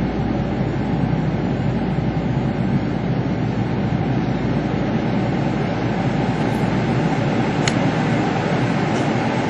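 Steady running noise of a Kintetsu Ikoma Line commuter train heard from inside the carriage: an even rumble of the car rolling on the rails, with a faint short high tick near the end.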